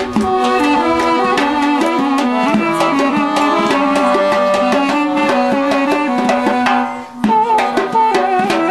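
Music with a quick, steady hand-drum beat under a melody; it drops away briefly about seven seconds in, then comes straight back.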